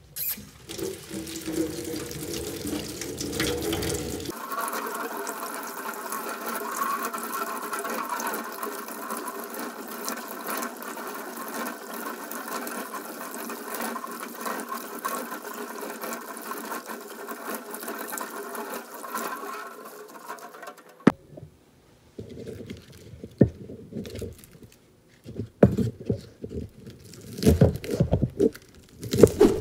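Tap water running steadily into a stainless-steel sink while leek stalks are rinsed by hand. It stops abruptly at a cut. Then a kitchen knife slices the leeks on a wooden cutting board in separate strokes, coming faster near the end.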